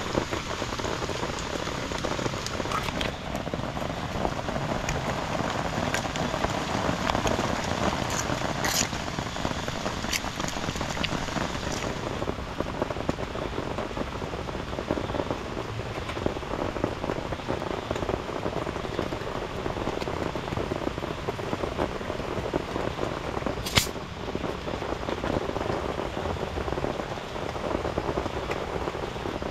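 Steady rain falling on a tent, heard from inside as an even hiss. A few small clicks sound over it, with a sharper click about 24 seconds in.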